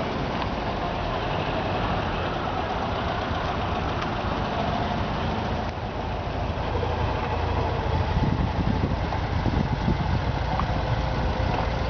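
Air-cooled Volkswagen flat-four engines running at low speed as a Type 2 bus and pickup roll slowly along. About six seconds in, an oval-window VW Beetle drives slowly past close by, and its engine sounds louder.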